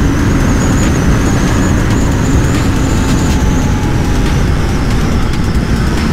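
Motorcycle at steady highway speed: heavy wind rush over the helmet microphone, with the KTM RC 390's single-cylinder engine running steadily beneath it.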